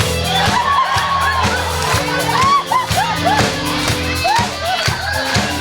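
Live band music with a regular drum beat and a bass line, with crowd voices over it.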